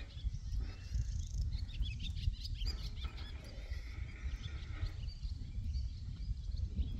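Small birds chirping and calling in short, rapid notes over a steady low rumble, with the chirps thickest in the first half.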